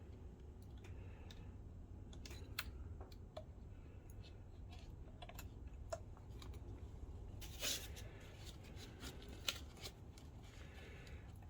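Faint, scattered clicks and light handling noises of small parts and equipment being moved about by hand, with a louder rustle about two-thirds of the way through and a sharp click soon after, over a low steady hum.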